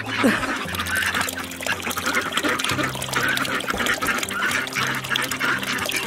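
Domestic ducks quacking repeatedly in short calls.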